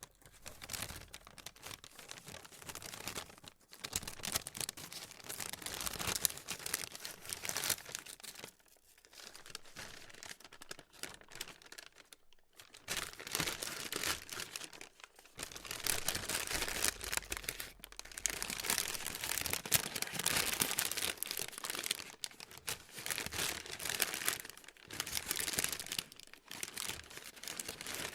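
Plastic being crinkled and crumpled by hand in dense, irregular crackling bouts with short pauses between them.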